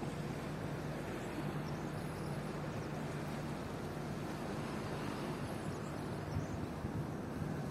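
Steady outdoor background rumble with a constant low hum, and faint high chirps now and then.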